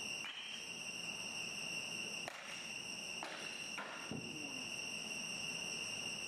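A steady high-pitched whine with a few faint knocks and swishes of batting practice off a tee, one about two seconds in and more shortly after.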